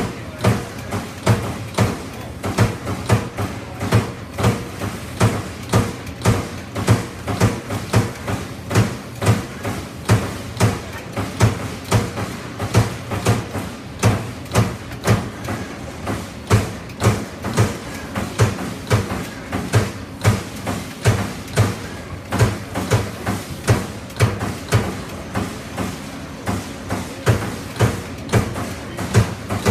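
1994 Amada Pega 357 CNC turret punch press punching sheet metal: a steady run of sharp thuds at about two to three strokes a second over a steady low hum.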